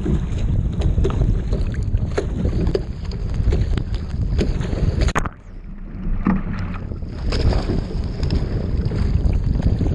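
Choppy whitecap waves slapping and splashing against the bow of a Peinert X25 racing shell, with wind buffeting the microphone. About five seconds in the sound suddenly goes quieter and muffled for a second or two, then the splashing and wind come back.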